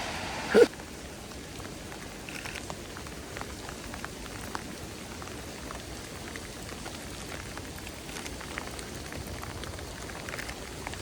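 Steady rain falling, with many separate drops ticking close by. A short loud sound just after the start.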